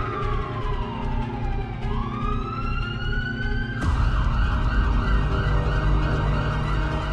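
Ambulance siren wailing, sliding slowly down in pitch and back up, then switching suddenly about four seconds in to a fast yelp of about three to four warbles a second, over a low rumble.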